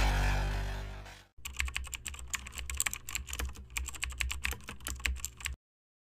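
Electronic intro music fading out over the first second, then rapid, irregular computer-keyboard typing clicks for about four seconds that cut off suddenly.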